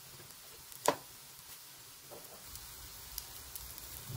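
Salsa verde sizzling faintly in a hot pot on the stove, with one sharp clink of a utensil against the pot about a second in and a few light taps later.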